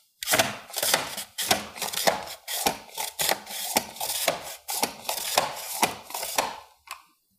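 Pull'n Slice mandoline cutting a potato into French fries: the handguard is pushed and pulled over the French fry blade in a rhythmic series of scraping cuts, about two a second, stopping near the end.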